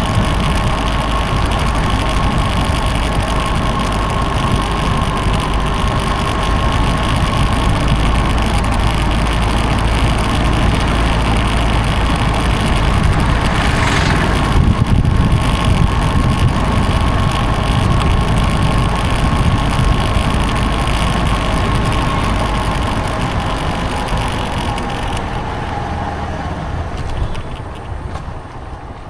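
Motorcycle running on the move, with a steady whine over a heavy low rumble. A short, loud noise cuts in about fourteen seconds in, and the sound quietens near the end.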